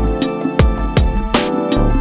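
A mobile phone's melodic ring or alarm tone playing: a tune over a regular beat.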